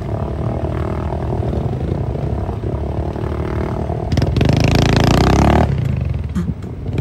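Vehicle engine working steadily through mud, then revving hard for about a second and a half about four seconds in, with a rush of noise, before easing back.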